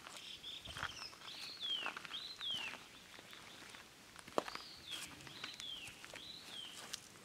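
A bird calling over and over: short high notes that each rise and then slide down, about two a second, with a pause partway through. A few soft clicks and taps sound among the calls.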